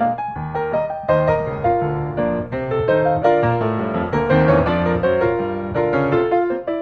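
Background piano music, a steady stream of notes.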